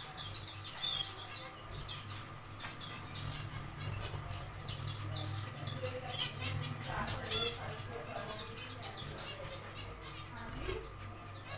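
Zebra finches in an aviary colony calling: a scatter of short chirps and nasal call notes, busiest about seven seconds in, over a steady low hum.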